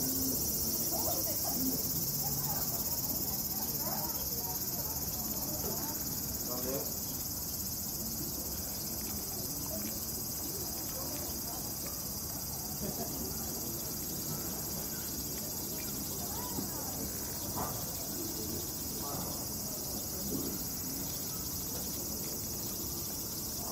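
A steady, high-pitched chorus of summer insects droning without a break.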